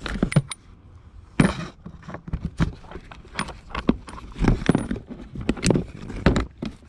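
Clinks and knocks of metal timing-belt kit parts, a tensioner and idler pulleys, being handled and set down in a cardboard box: a dozen or so irregular sharp strikes.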